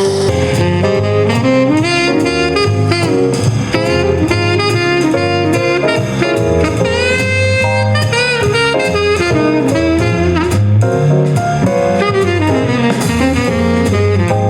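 Smooth jazz with a saxophone lead over a steady bass line, played at full volume through a small 5-watt JBL Bluetooth speaker.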